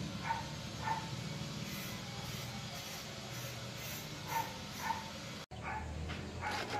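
A dog barking, short barks that come in pairs about half a second apart, over a steady low hum.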